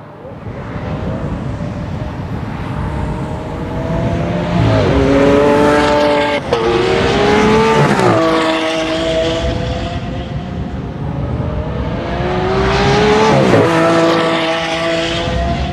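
Lamborghini Aventador naturally aspirated V12 engines at high revs on a racetrack, the engine note climbing and then dropping sharply about four times as the cars accelerate, shift and pass.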